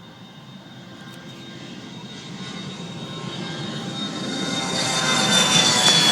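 Bombardier CRJ200 regional jet's twin turbofan engines growing steadily louder as it approaches, with a high engine whine sliding slightly down in pitch as it nears.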